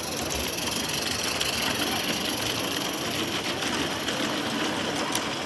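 A 16mm-scale live-steam narrow gauge model locomotive passing close with a long goods train: a steady, rapid mechanical clatter of the engine and the wagons' wheels running over the track.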